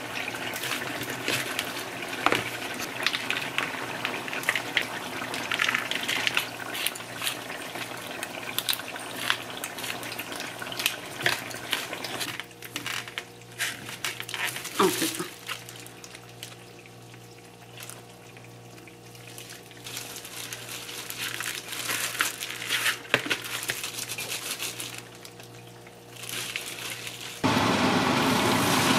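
Kitchen handling of a raw steak: plastic wrap peeled off a styrofoam tray, a knife scoring the meat and a plastic glove crinkling, heard as scattered clicks and rustles over a faint steady hum. Near the end a loud, steady sizzle of hot oil in a frying pan begins as the steak goes in.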